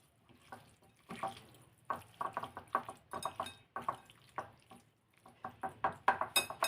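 Small chicken-breast pieces being mixed with a garlic and black-pepper marinade in a bowl: a run of short, irregular wet sounds, a few each second, starting about a second in.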